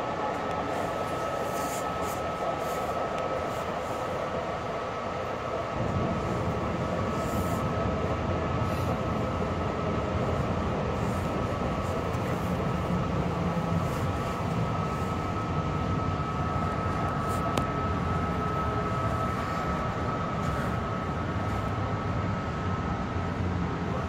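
Long Island Rail Road M3 electric multiple-unit train running at speed, heard from inside the rear car: steady rail and running noise with a thin high whine. About six seconds in, a deeper rumble joins as the train rolls onto a bridge on the elevated line.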